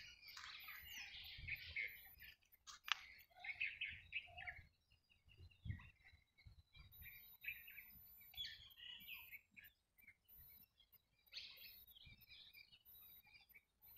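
Faint birds chirping and calling in short, irregular bursts, with a single sharp click about three seconds in and a few low knocks.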